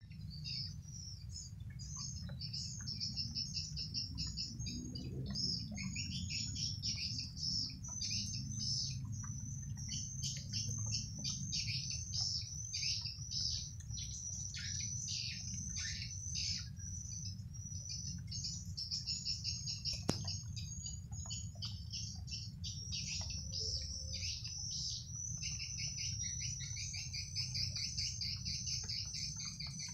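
Swiftlets twittering: a dense, continuous stream of rapid high chirps over a steady low rumble, with a single sharp click about two-thirds of the way through.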